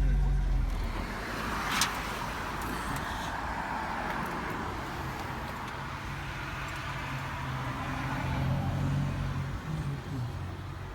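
Renault 4 GTL's four-cylinder engine running in good health, with a single sharp click about two seconds in.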